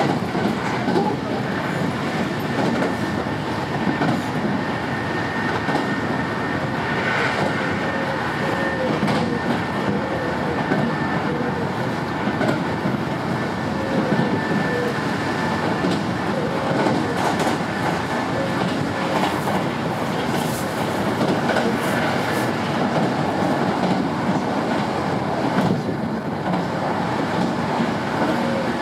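Sanyo 5000-series electric train running at speed, heard from inside the passenger car. There is a steady rumble of wheels on rail, with occasional clicks and a faint steady whine over it.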